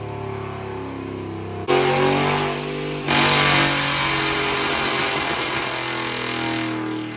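GMC Yukon's 4.8-litre V8 with a straight-piped catback exhaust running on a chassis dyno: it idles, jumps up in level suddenly a little under two seconds in, and rises again about three seconds in with added hiss from the spinning tyres and dyno roller. It then eases back down toward idle near the end.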